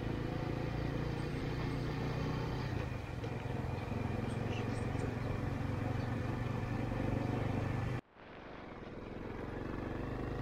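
An engine running steadily with a low, even drone. About eight seconds in the sound cuts out abruptly, then fades back in.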